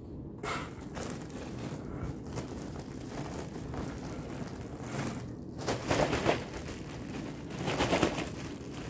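Clear plastic bin liner rustling and crinkling as it is gathered and lifted out of a waste bin, with two louder bursts of crinkling in the second half.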